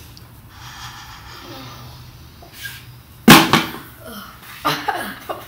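A boy drinks maple syrup soda from a plastic cup with little sound. About three seconds in comes a sudden loud burst, his reaction to the taste, followed near the end by short vocal sounds of disgust.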